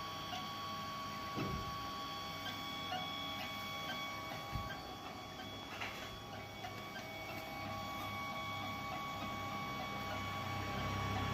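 Homemade 3D printer running: a steady multi-tone whine from its stepper motors, with scattered light ticks. A low hum builds near the end.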